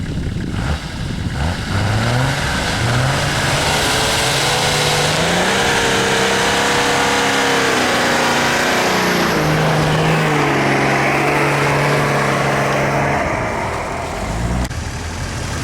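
An off-road 4x4's engine revving hard under load, its pitch climbing in steps, held high, then dropping back and running lower before easing off near the end. A loud rushing hiss rides on top through the middle.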